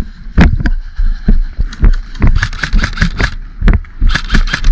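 Running footsteps jarring a body-worn camera, heavy irregular thuds a few times a second, with gear rattling and wind buffeting the microphone.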